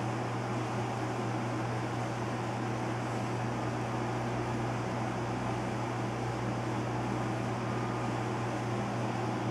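Steady rush of wind and heavy rain from a derecho windstorm, heard from indoors, with a steady low hum underneath.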